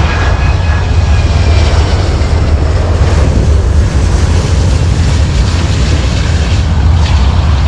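Airbus A380's jet engines running with a loud, steady low rumble under a broad roar. A faint whine glides across near the start.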